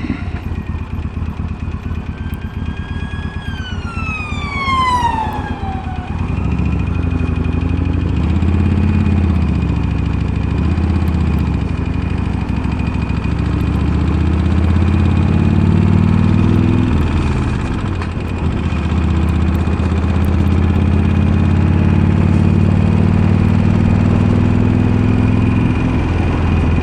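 Harley-Davidson Sportster Iron V-twin with slip-on mufflers running, its pitch rising and falling with the throttle. In the first few seconds a siren rises and falls once.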